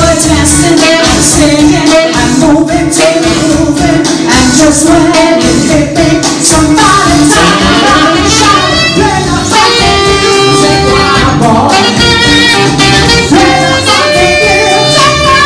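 Live band playing: saxophone and electric guitar with a singing voice over a steady beat, with several long held notes in the second half.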